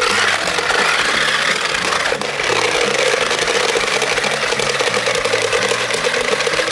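Battery-powered two-wheeled RC stunt car (Crazy Tumble Bee) driving fast over textured concrete: its small electric motors whirring at full throttle and its wheels rattling on the ground. The sound starts suddenly as the throttle goes on and holds steady.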